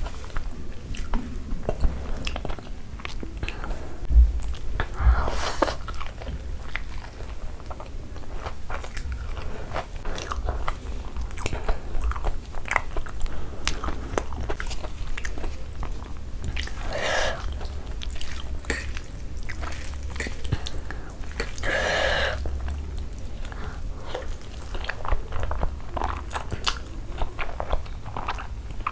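Close-miked mouth sounds of eating: biting and chewing a crumb-coated cheese corn dog and then black bean noodles, with many small wet clicks and smacks. Three times a short, louder rush of noise stands out over the chewing.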